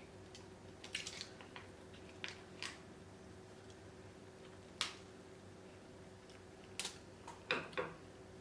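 Hard king crab leg shell being cracked and pulled apart by hand, a handful of short, sharp snaps spread over several seconds, the loudest cluster near the end.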